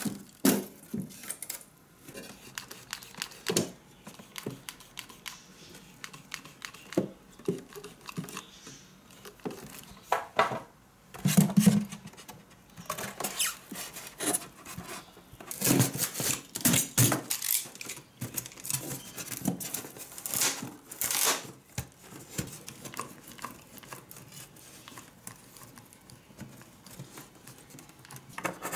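Hands working a styrofoam box: intermittent scraping and rubbing of the foam, with scattered clicks and knocks as a clear pane and lamp holders are fitted, and a louder bump about eleven seconds in.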